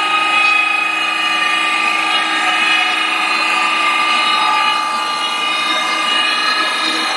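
CNC wood lathe running while turning a wooden leg: a steady mechanical whine made of several tones over a hissing noise, some tones shifting slightly in pitch midway.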